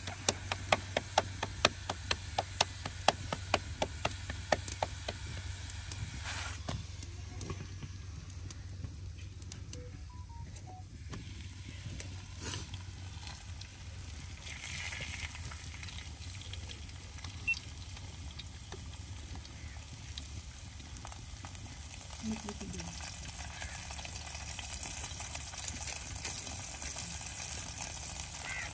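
Food sizzling as it fries in a hot pan. For the first five seconds a quick run of sharp taps, about three or four a second, sounds over the sizzle.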